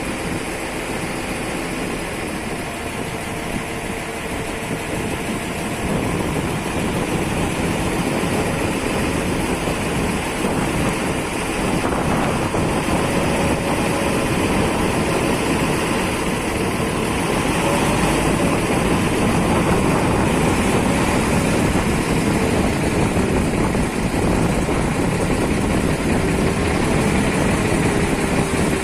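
Ferry boat's engine running steadily, growing louder about six seconds in.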